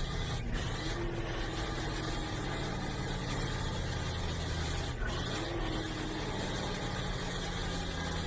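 Logging truck's diesel engine running steadily while driving, with road noise. About five seconds in, the engine sound breaks briefly and its pitch shifts, typical of a gear change made without the clutch.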